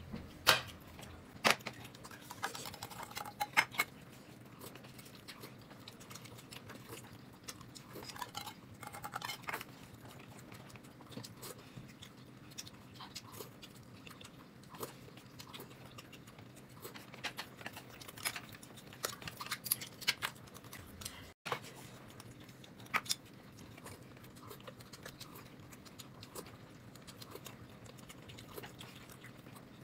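Quiet eating: chewing, with scattered small clicks and taps throughout, over a faint steady room hum.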